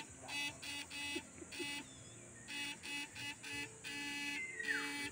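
Electric fishing rig buzzing in short repeated electronic pulses, a couple a second, while its probe is in the water. A short falling whistle near the end.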